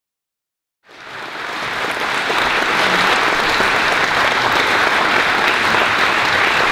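Audience applause, silent at first, rising over about a second about a second in, then holding steady.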